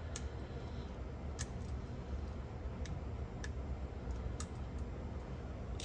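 About seven faint, scattered small clicks of little cassette-deck parts being handled during fitting of a new roller, over a steady low hum.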